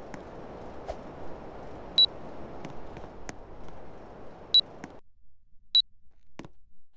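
Air conditioner running with a steady rushing noise and scattered light clicks, giving three short high control beeps, about two, four and a half and almost six seconds in. The running noise cuts off suddenly just after the second beep.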